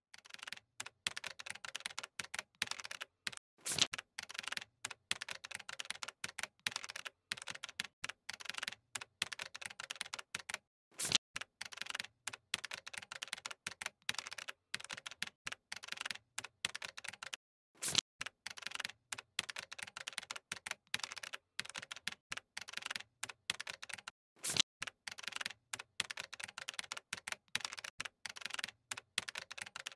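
Rapid computer-keyboard typing clicks, several keystrokes a second, with a few sharper, louder clacks spaced several seconds apart.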